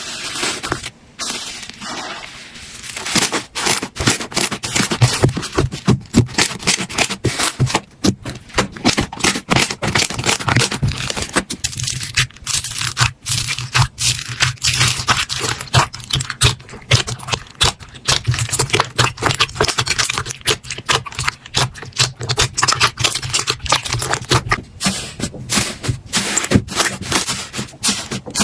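Slime being pressed, squished and poked by hand close to the microphone: a dense, irregular run of sticky crackles, clicks and pops, after a steady hiss for the first two or three seconds.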